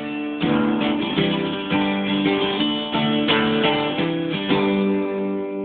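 Acoustic guitar strumming chords, about two strums a second, with the chords changing as it plays the song's closing bars.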